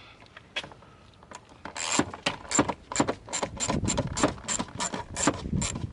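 Socket ratchet clicking steadily, about four clicks a second, as it backs out a 7 mm bolt; a couple of single clicks come before the run starts.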